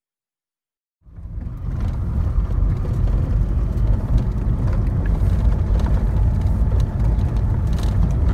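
A car driving along a rough country road: a steady low rumble of engine and road noise, starting about a second in.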